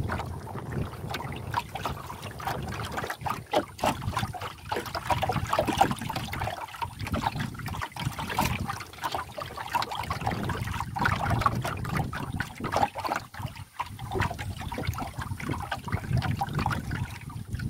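River water lapping and splashing against the hull of a small wooden canoe in uneven, irregular slaps.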